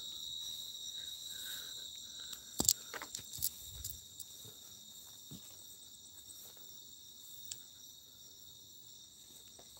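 Crickets chirping steadily at night, a constant high-pitched trill. A few brief knocks and rustles between about two and a half and four seconds in.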